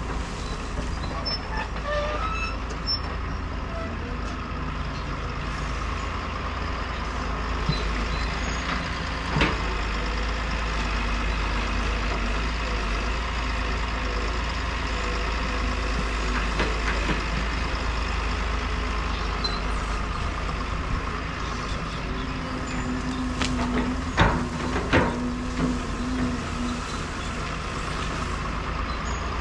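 Caterpillar hydraulic excavator's diesel engine running steadily under load as it digs and drags dirt and brush, with a few sharp knocks about ten seconds in and twice near the end.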